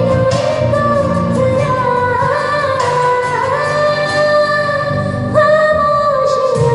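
A woman singing a Hindi film song in long, sliding held notes over a backing track.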